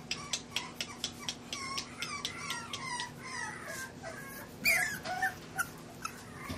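English bulldog puppies whining and squealing at play: a quick string of short, high-pitched cries, many sliding down in pitch, with the loudest squeal about two-thirds of the way through.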